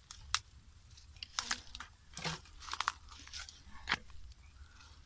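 Dry twigs and leaf litter crackling and snapping at a small open wood fire, a string of irregular sharp crackles as sticks are handled and fed in.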